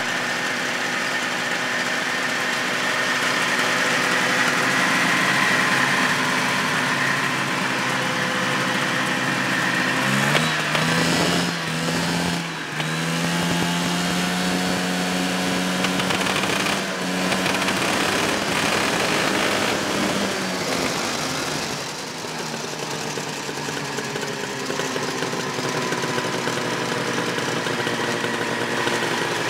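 Arctic Cat Panther snowmobile's fan-cooled Kawasaki 440 two-stroke engine running at a steady idle. About ten seconds in it is revved up, dips briefly, then is held at a higher speed for several seconds before settling back to idle.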